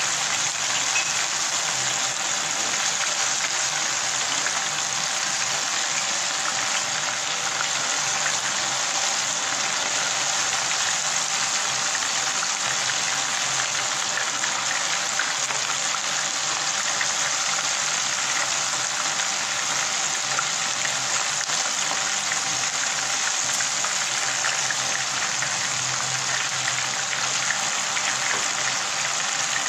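Mini chicken-and-vegetable shashlik sticks deep-frying in hot oil in a pan: a steady sizzle with fine crackling from the bubbling oil.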